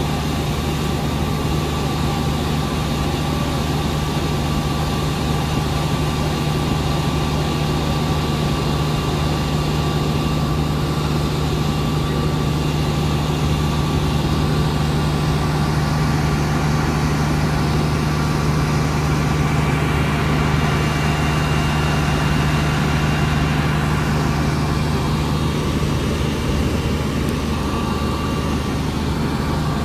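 Fire truck engines running steadily under load, driving the pumps that feed the aerial ladder's water spray: a constant low engine hum with a hiss over it.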